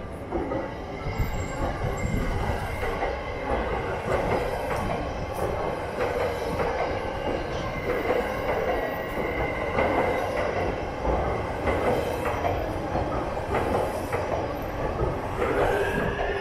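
Electric commuter train running through a railway station: a steady rumble of wheels on rails with some wheel squeal, getting louder about half a second in and carrying on throughout, with a rising whine near the end.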